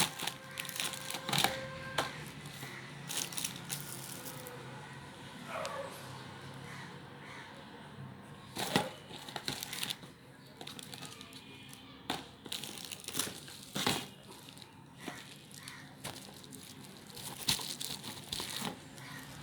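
Plastic packaging crinkling and rustling in irregular bursts as a parcel is handled and opened.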